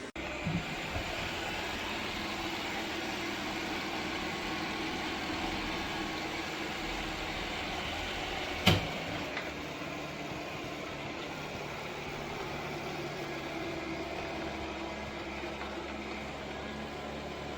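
Dreame L10s Ultra robot vacuum running with a steady whirring hum, and a single sharp knock about halfway through.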